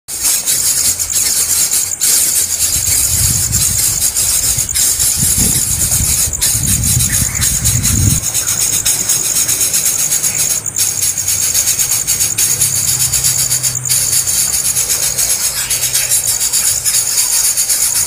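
Nestlings begging with a continuous high-pitched, rasping buzz, broken by brief gaps every few seconds. A low rumble runs under it from about two to eight seconds in.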